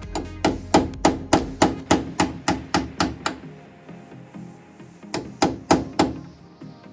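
Hammer blows in quick, even runs of about three a second: roughly a dozen strikes, a short pause, then a few more that grow fainter.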